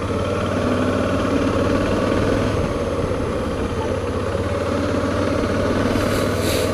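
Suzuki V-Strom's V-twin engine running steadily at low road speed, with no revving. A brief faint hiss comes in near the end.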